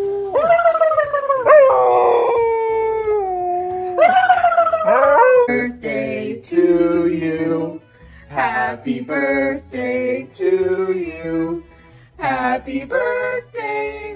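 Dogs howling: two long howls that slide down in pitch, then a string of shorter howled notes, about one to two a second.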